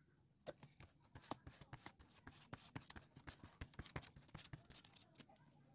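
Faint, irregular clicks and scratches of a glue brush spreading adhesive over a strip of leather.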